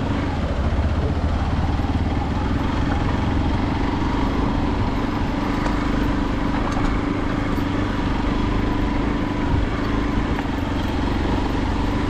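Motor vehicle engine running steadily while driving along a road, a constant low hum with road and wind noise.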